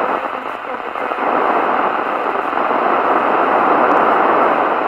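CB radio receiver on 26.825 MHz FM hissing with steady loud static through its speaker; the distant station calling in is too weak to be pulled out of the noise.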